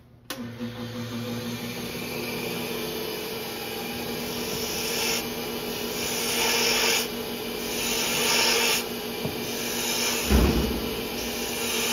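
Wood lathe switching on just after the start and running with a steady motor hum. A spindle gouge then cuts the spinning wooden mallet handle in several passes, each a scraping hiss of shavings coming off, with a dull thump near the end.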